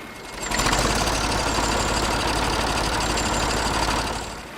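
An engine running steadily with a fast, even pulse, fading in about half a second in and fading out near the end.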